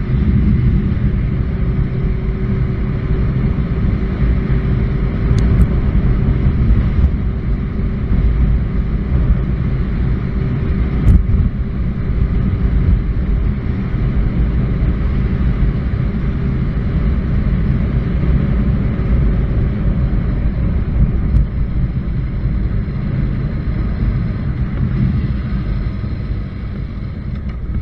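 Honda CBR900RR Fireblade's inline-four engine running at a steady cruise under heavy low road rumble on the bike-mounted microphone, easing off slightly near the end.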